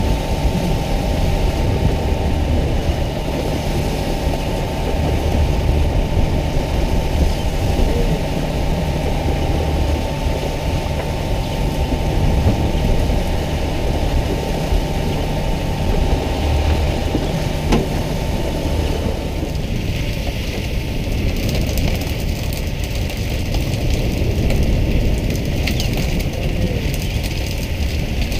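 Fishing boat's engine running steadily, a low hum under a constant hiss of spraying water. The hiss turns brighter in the second half, with a few short knocks.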